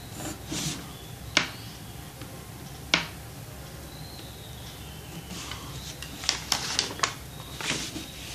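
Pencil-and-paper drafting noises: short scratchy pencil strokes, two sharp clicks of the drafting machine and its scales in the first three seconds, then paper rustling and a few more clicks as a printed sheet is slid over the drawing.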